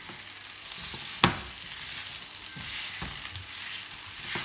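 Potatoes frying in olive oil in a frying pan on high heat, sizzling steadily as a metal potato masher crushes them. There is a sharp knock of the masher against the pan about a second in and another near the end.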